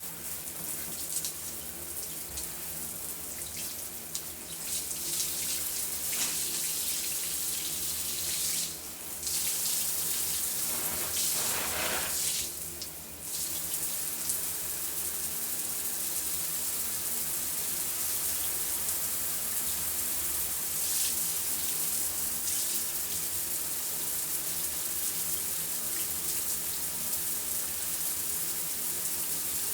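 Shower running: a steady hiss of water spraying down. The spray briefly drops and changes twice, about nine and thirteen seconds in.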